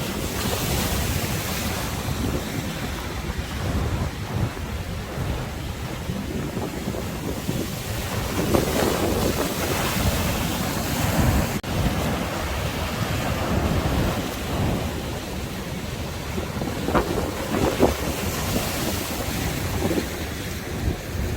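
Sea waves surging and breaking, with strong wind buffeting the microphone.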